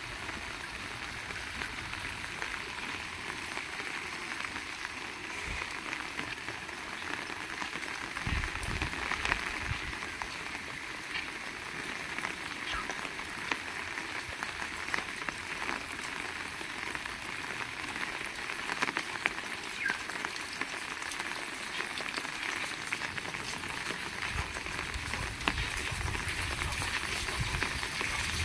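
Heavy rain falling, a steady hiss thick with the crackling patter of individual drops. A low rumble comes in briefly about eight seconds in and again over the last few seconds.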